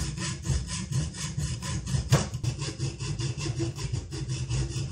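Hacksaw cutting into an aluminium bicycle wheel hub flange clamped in a vise: quick, even back-and-forth strokes, metal blade rasping through soft metal.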